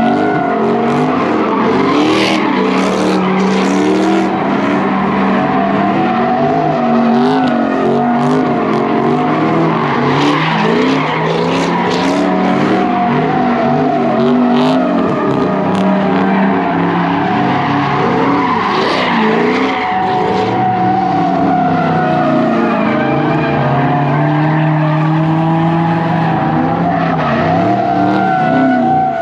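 Dodge Charger doing donuts: loud engine held at high revs, its pitch rising and falling as the throttle is worked, over a steady tire squeal from the spinning rear tires.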